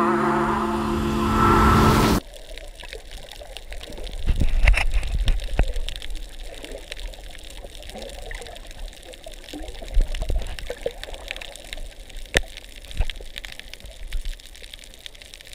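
A held music chord cuts off abruptly about two seconds in. What follows is underwater sound from a submerged camera: a low rumbling water noise with irregular crackles and knocks.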